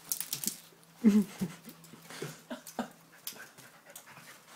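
A dog panting and sniffing, with a short, loud whine about a second in and a few scattered clicks and rustles.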